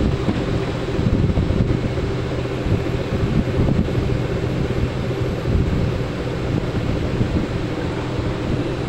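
Steady hum and rush of air from a large industrial fan running.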